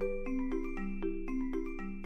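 Background music: a light melody of short struck notes over held chords that change about every half second.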